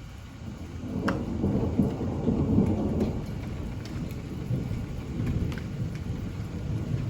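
Typhoon rainstorm: steady rain with a deep rumble that swells about a second in, is loudest a couple of seconds later, then eases but carries on.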